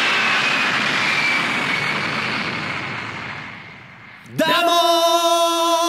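Jet airliner passing: a steady whoosh with a slowly falling whine that fades away over about four seconds. Then a loud held musical note cuts in suddenly.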